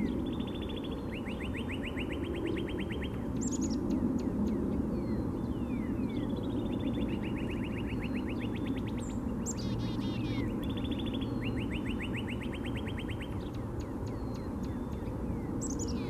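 Northern cardinal singing: three phrases, each made of a few whistles slurring down from high, then a rapid trill of about ten notes a second lasting about two seconds. A steady low rumble runs underneath.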